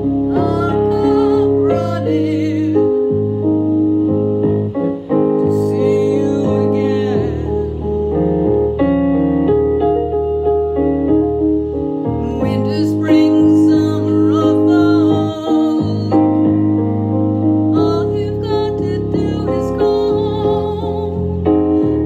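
A woman singing sustained, vibrato-laden phrases over a piano accompaniment, with short breaks between phrases.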